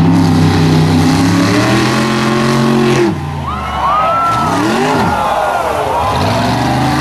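Lifted mud truck's engine at full throttle, climbing in pitch as it charges through the mud; about three seconds in the engine note drops off suddenly, then revs sharply up and down several times as the truck goes airborne and lands, before settling back to a steady high rev.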